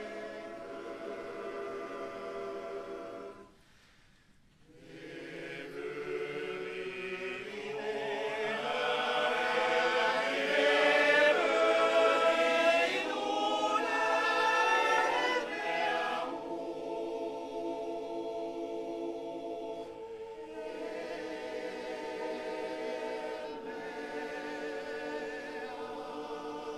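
Male choir singing a cappella in close harmony. The voices break off briefly about four seconds in, swell to a loud passage in the middle, then settle softer toward the end.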